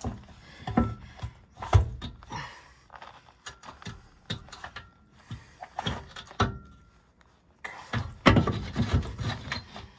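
Irregular knocks, clanks and scraping as a skid steer's drive chain and parts in its chain case are worked by hand, with a busier stretch of clatter near the end.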